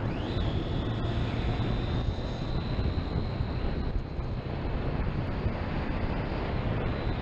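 Wind rushing over the camera on a moving Triumph Street Triple motorcycle, with the bike's inline three-cylinder engine running steadily underneath.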